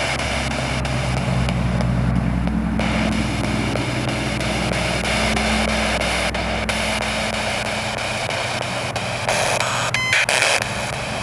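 Spirit box sweeping through radio stations: steady static hiss broken by faint, regular ticks as it steps between channels. A low engine hum sits under it and fades out after about seven seconds.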